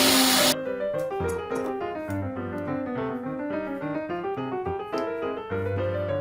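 Background piano music playing a run of notes. A loud rushing noise under it cuts off abruptly about half a second in.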